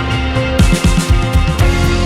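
Background rock music with guitar; a run of sharp beats comes in about half a second in, and the music grows fuller near the end.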